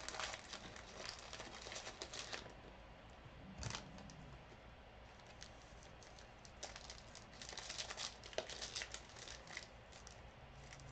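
Faint handling of trading card packs and cards: wrappers crinkling and cards rustling in two stretches of quick crackly rustles.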